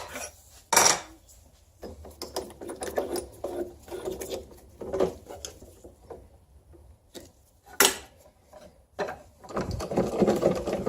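Workshop handling noises: irregular clicks, knocks and rustling clatter as pieces of scrap wood and tools are picked up and moved about on a cluttered bench, with sharp knocks near the start, about a second in and near eight seconds.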